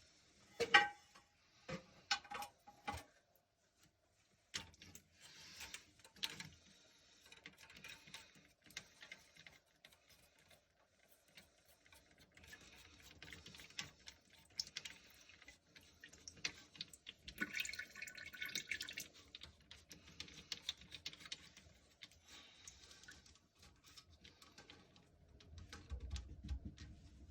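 Scattered clicks and knocks of plastic toilet-tank parts being handled and fitted in the tank, with water dripping and trickling.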